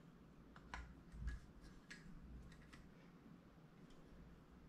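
Faint, scattered clicks and light taps of a 1946–48 Ford flathead V8 carburetor and its small metal parts being handled and fitted together by hand, with a soft low bump a little over a second in.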